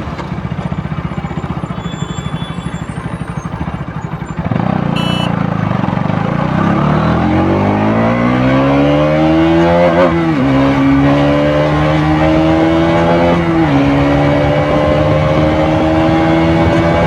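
KTM RC 200's stock exhaust, its 199.5 cc single-cylinder four-stroke putting along at low revs, then pulling away with the revs climbing. It shifts up with a dip in pitch about ten seconds in and again about thirteen and a half seconds in, then holds a steady cruise.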